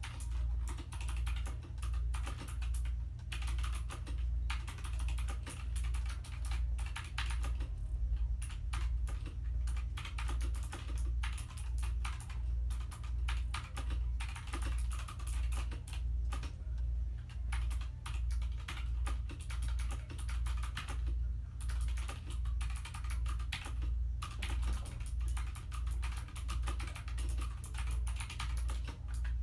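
Typing on a 60% mechanical keyboard with clicky clone blue switches: a fast, continuous run of sharp clicks and clacks from the keys, with brief pauses.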